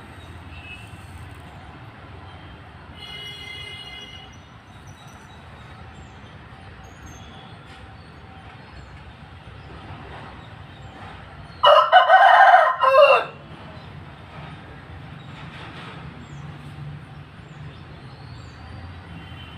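One loud animal call lasting about a second and a half, about two-thirds of the way in, over a low steady hum. Faint high chirps sound a few seconds in.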